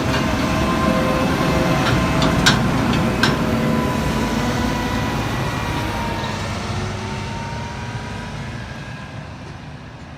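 A heavy farm machine's engine running steadily with a low rumble and a slightly wavering drone, gradually fading out. There are a couple of sharp clicks a few seconds in.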